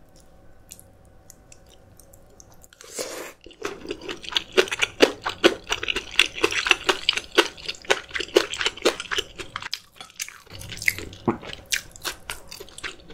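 Close-up chewing of crunchy food, a quick run of crisp crunches from about four seconds in, a brief pause near ten seconds, then more chewing.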